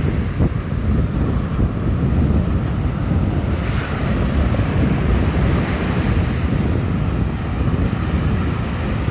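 Strong wind buffeting the microphone with a rumbling, gusting roar, over a steady rush like heavy surf.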